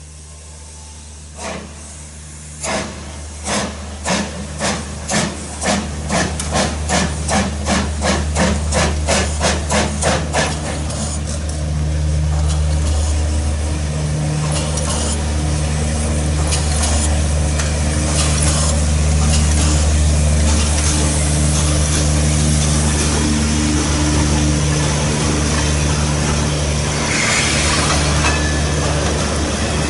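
Steam tank locomotive starting a train: the exhaust chuffs begin slow, about one every second and a half, and quicken to about three a second. After about ten seconds they merge into a steady rush and rumble as the locomotive and its coaches roll past.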